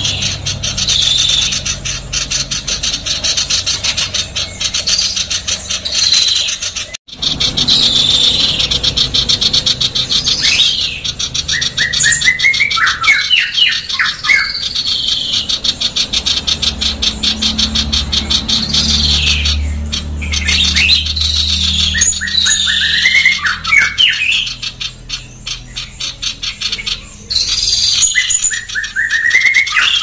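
Female common iora calling fast and harsh: a dense, rasping chatter of rapid notes, broken by runs of quick short notes roughly every eight seconds. The sound cuts out for an instant about seven seconds in.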